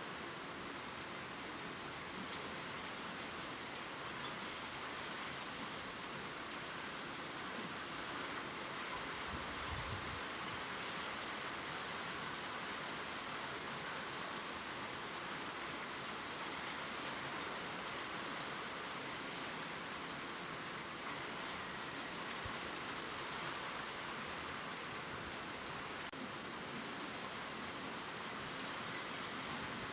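Gentle rain falling steadily on leaves: an even hiss with faint scattered drop ticks.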